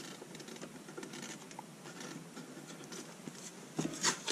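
Faint rustling and scratching of fingers pressing and smoothing masking tape onto the panels of a laser-cut plastic box, with a few louder clicks and knocks near the end.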